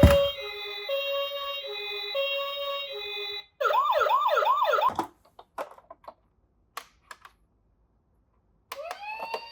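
Toy ambulance minicar's electronic siren: an alternating two-tone hi-lo sound for about three seconds, then a fast rising wail repeated about three times a second that cuts off about five seconds in. A few faint clicks follow, and the siren starts up again with a rising tone near the end.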